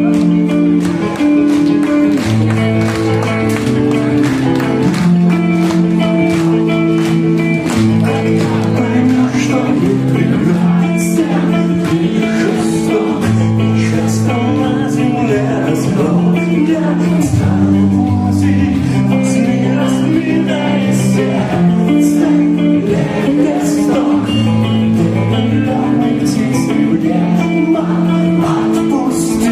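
Live rock band playing a slow song intro: held guitar chords changing every second or two over a bass line, without a drum beat.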